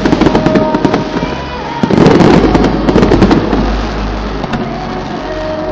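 Fireworks going off in two dense volleys of rapid crackling bangs, the first at the start and the second from about two seconds in, easing off after about three and a half seconds. Music plays underneath.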